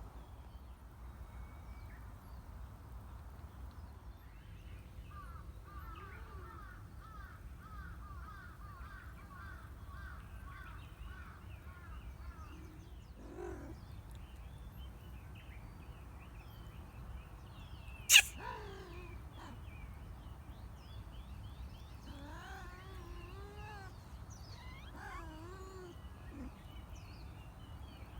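A kitten sneezes once, a short sharp burst about two-thirds of the way in and by far the loudest sound. Earlier a bird chirps in a quick run of repeated notes, and after the sneeze come several wavering animal calls.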